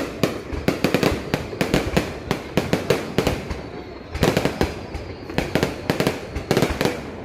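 Fireworks display: a rapid, irregular barrage of shell bursts, several bangs a second, with a short lull a little past the middle before the bangs pick up again.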